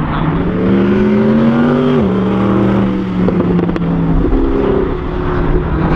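Mercedes-Benz SLS AMG's V8 engine running hard under acceleration, its pitch climbing and then dropping suddenly about two seconds in before holding fairly steady.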